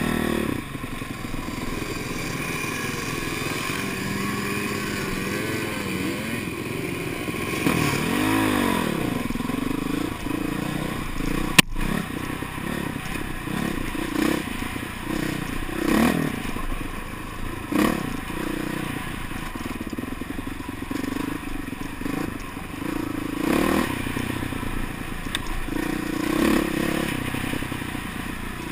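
Honda CRF450R dirt bike's single-cylinder four-stroke engine running on a trail ride, revs rising and falling as the throttle is worked, with clatter from the bike over the rough ground. A single sharp knock near the middle.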